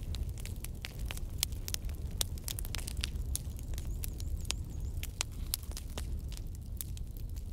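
Oil with spice seeds crackling and popping in a pan on a portable gas stove: scattered sharp pops at an uneven pace, over a low steady rumble.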